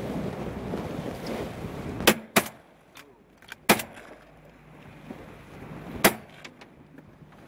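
Four shotgun shots from the boat: two in quick succession about two seconds in, one near four seconds and one about six seconds in, with a few faint clicks between. Wind and boat noise fill the first two seconds and drop away after the first shot.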